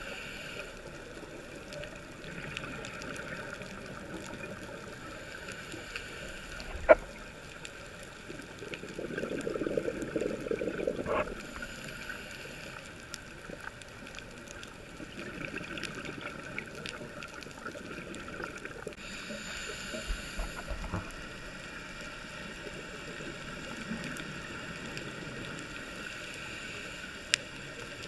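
Muffled underwater ambience heard through a dive camera's housing, with a scuba diver's exhaled regulator bubbles gurgling about nine to eleven seconds in and more faintly later. Two sharp clicks, about seven seconds in and near the end.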